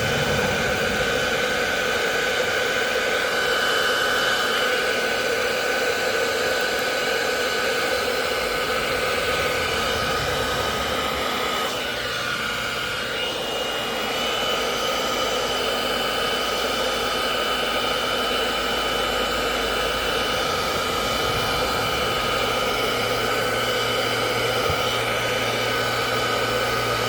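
Electric heat gun running steadily, its fan blowing with a high whine, heating wrap vinyl to seal the pressure-sensitive adhesive around the edges.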